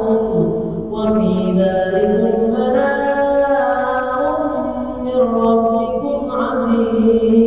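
Quranic verses (ruqyah) recited by a single voice in a slow, melodic chant, with long held notes that glide gently up and down.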